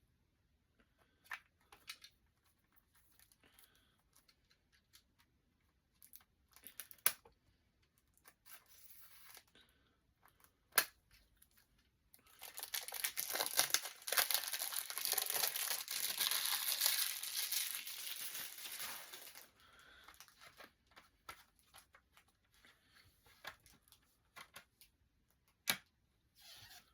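Packaging being crinkled and torn open by hand while a CD is unwrapped, loudest for several seconds around the middle, with scattered clicks and taps of handling before and after.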